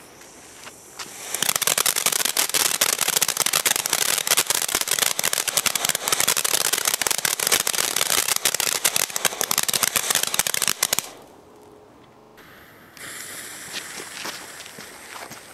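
Small boxed Category 1 fountain firework spraying sparks with a dense, rapid crackle over a loud hiss. It starts about a second in, lasts around ten seconds and cuts off suddenly. A quieter sputtering hiss of sparks follows near the end.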